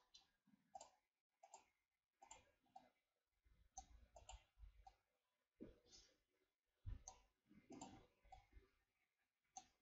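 Faint, irregular clicks of a computer mouse and keyboard, about fifteen scattered through the stretch.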